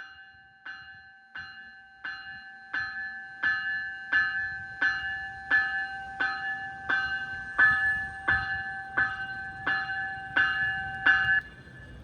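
A GO Transit passenger train's warning bell ringing steadily, about three strikes every two seconds, growing louder as the train comes closer and stopping shortly before the end. The train's low rumble builds underneath it.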